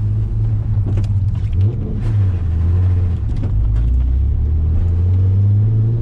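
Car engine heard from inside the cabin, a low drone that rises and falls in pitch a few times as the driver works the throttle to get the car unstuck on ice.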